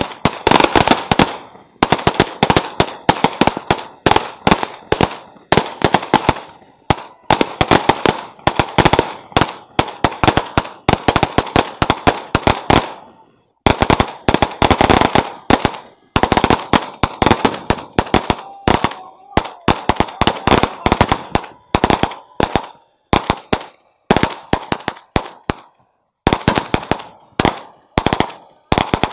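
Strings of firecrackers going off in rapid runs of sharp bangs, broken now and then by short pauses.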